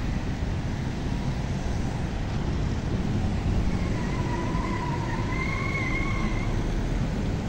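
Wind buffeting the microphone over distant street traffic, a steady rumble. About four seconds in, a wavering tone comes in over it for about two seconds.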